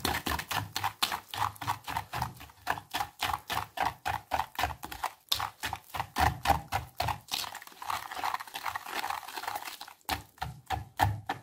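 Wire whisk beating egg, oil and sugar in a plastic bowl: rapid, even clicks and taps of the wires against the bowl at about five strokes a second, blurring into a steadier swishing for a couple of seconds late on.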